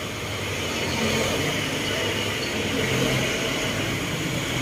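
Steady mechanical hum with an even hiss, unchanging throughout.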